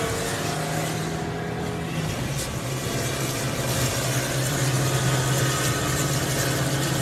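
Car engine and road noise heard from inside the moving car's cabin: a steady low engine hum whose pitch drops slightly and grows stronger about two seconds in.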